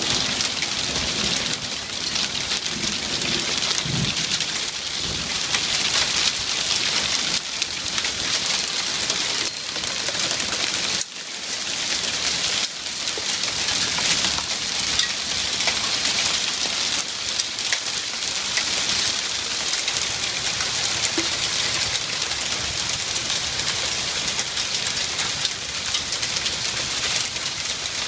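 A hailstorm: heavy rain with small hailstones pelting a wooden deck and the objects and roof around it. It makes a dense, steady hiss full of tiny sharp ticks.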